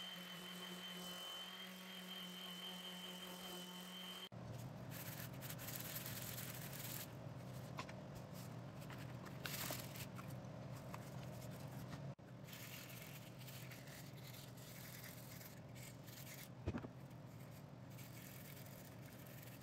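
DeWalt random orbital sander running on a walnut cutting board with a steady hum and whine. About four seconds in it gives way to sandpaper rubbing along the board's edges by hand in rasping strokes, with a single sharp knock near the end.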